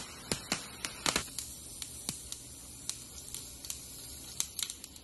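Cumin seeds sizzling in hot oil in a frying pan while the tempering is made, a steady hiss with irregular sharp pops and crackles.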